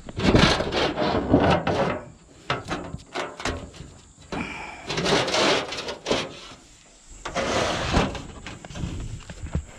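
Sheet-metal chimney roof flashing being worked up under asphalt shingles: the metal and the gritty shingles scrape and rub against each other in several bursts of about a second each.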